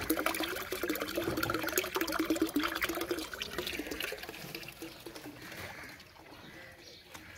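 A stream of water pouring into a metal basin that is already full of water, splashing and bubbling. It is loudest for the first three seconds or so, then fades.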